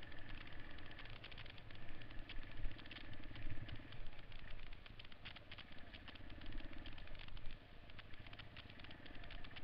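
Honda XL dirt bike's single-cylinder four-stroke engine running on the move, its speed rising and falling, with frequent clicks and rattles from the rough trail.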